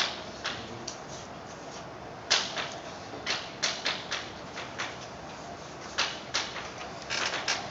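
Chalk writing on a chalkboard: irregular short taps and scratches, the loudest about two seconds in, with a quick run of strokes near the end.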